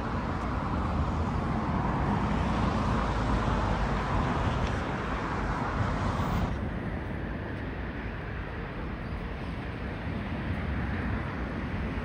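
Steady hiss and rumble of road traffic, with low wind buffeting on the microphone. The hiss turns duller about halfway through.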